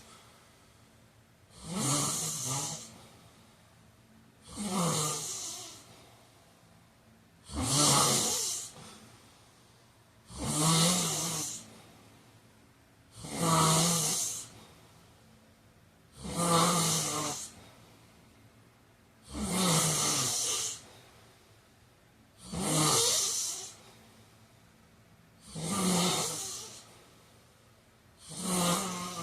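A man snoring in his sleep, one snore about every three seconds. Each snore is a low buzz with a breathy hiss over it, followed by a quiet gap.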